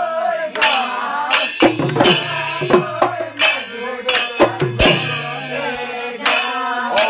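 Live Husori folk music: drums and hand cymbals beating out a rhythm, with a group of men's voices singing and shouting over them.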